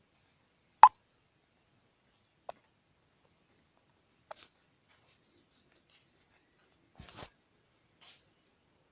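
A single short, loud pop from a phone chat app, a message being sent, about a second in, followed by a few faint clicks and rustles.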